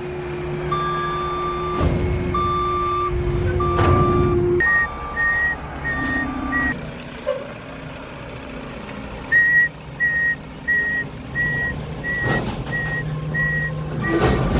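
Backup alarms on reversing garbage trucks beeping steadily, two alarms at different pitches overlapping for a while, over a running truck diesel engine, with a few heavy knocks.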